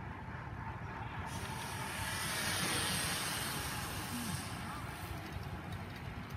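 A racing bicycle passing: a hiss of tyres and wheels on asphalt that starts about a second in, swells, and fades out about five seconds in, over a steady low rumble.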